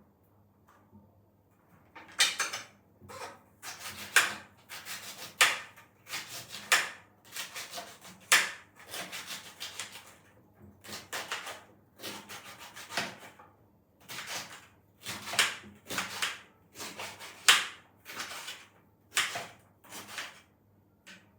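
Repeated rubbing or brushing strokes, about two a second with short pauses, starting about two seconds in.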